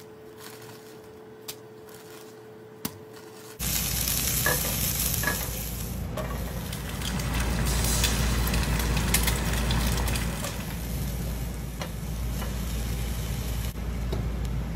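Food frying in oil in a hot pan: a steady sizzle that starts suddenly a few seconds in, with scattered clicks of stirring through it. Before it there is a quieter stretch with a steady hum and two small clicks.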